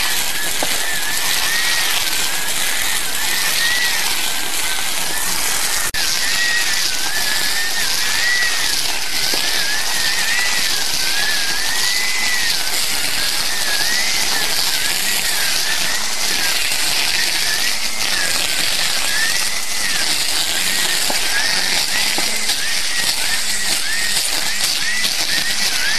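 Greenworks 40V battery-powered grass trimmer running at speed and cutting through tall grass: a high electric motor whine that wavers up and down, over the hiss and swish of the spinning head in the grass.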